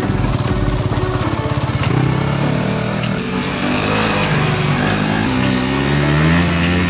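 Dirt bike engine revving, its pitch climbing and dropping again and again as the throttle is worked.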